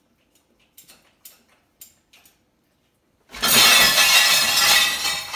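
Dishes clinking lightly in a dishwasher's lower rack as a dog noses among them. About three seconds in comes a loud crash and clatter of plates, bowls and cutlery lasting a couple of seconds, as the rack's load tumbles.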